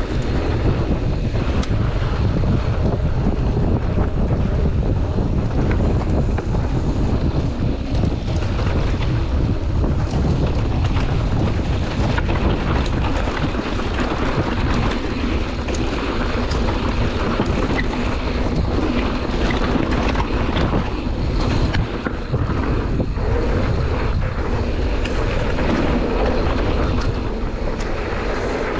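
Wind rushing over the camera microphone on a mountain bike descending a dirt trail, a steady low rumble, with tyres rolling over dirt and many quick knocks and rattles of the bike over bumps.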